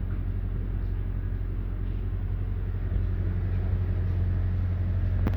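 Toyota Surf engine running at a steady high idle that will not come down, a fault later traced to two wires swapped in a connector plug. A short click near the end.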